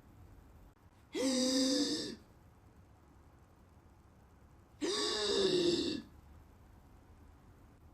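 Two drawn-out voice-like cries, each about a second long and a few seconds apart, with a steady, slightly falling pitch.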